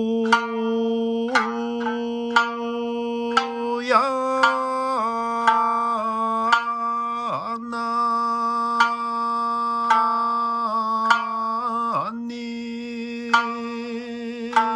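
Sanshin plucked about once a second under a singer holding long, steady notes in Okinawan classical style, in honchōshi tuning. Twice the voice dips sharply in pitch and comes back up.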